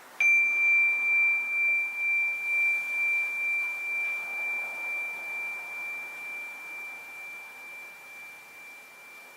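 Tamayura rin, a small Japanese Buddhist bowl bell, struck once and left to ring: one clear high tone with a slow pulsing waver, about two pulses a second, fading gradually over several seconds.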